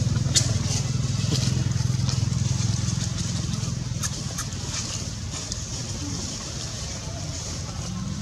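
Low steady engine hum that fades after about three seconds, with a few light clicks scattered through it.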